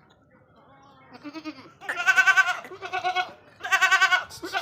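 Goats bleating: a faint bleat about a second in, then a run of loud, wavering bleats, four in quick succession from about two seconds in.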